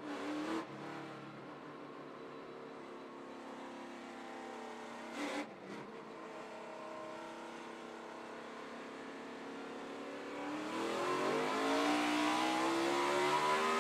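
NASCAR Cup stock car's V8 engine heard from its in-car camera, running at a steady pitch at restart pace, then revving up and growing louder about ten seconds in as the field accelerates to the green flag.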